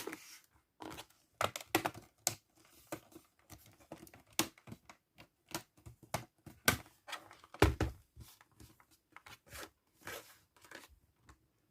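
Plastic screen bezel of a ThinkPad T420 laptop lid being pressed down and clicked into place: a run of irregular small clicks and snaps, with a louder snap or knock about two thirds of the way in.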